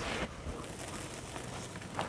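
Hands scooping and pressing wet, gritty charcoal sand and cement powder in a plastic basin: a steady soft crunching and rustling of grit.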